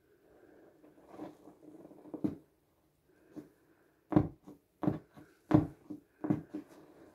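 Partly deflated vinyl inflatable pool toy being pressed and squeezed by hand, its plastic rubbing and creaking, with five short, sharp sounds in the second half.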